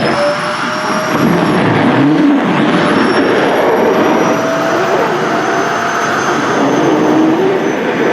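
Sharp EC-KP7F-A vacuum cleaner running steadily with a high motor whine, its lower airflow note wavering up and down as the nozzle sucks at skirt fabric.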